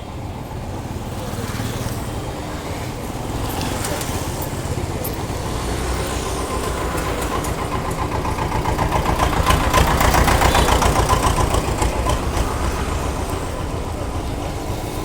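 Bus diesel engine running at a bus stop. It grows louder towards the middle, with a fast, even throb, then eases off again, as a bus pulls in or away.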